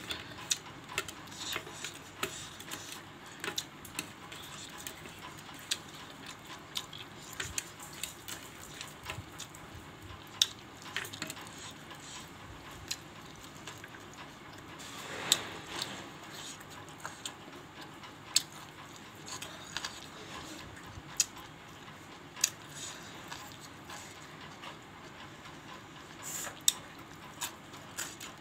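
Close-up eating sounds of rice and curry eaten by hand: irregular wet mouth clicks and lip smacks while chewing, with fingers squishing and mixing food on a plate. One longer, louder sound comes about halfway through.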